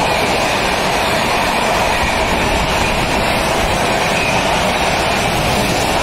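Indian Railways passenger train with red coaches running past at speed alongside a station platform: a loud, steady rush and rumble of wheels on rails.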